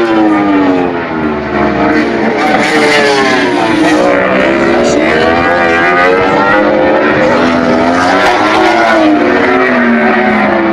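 MotoGP racing motorcycles passing at speed, several engines overlapping, their high-revving notes repeatedly falling and climbing again as the bikes brake and accelerate.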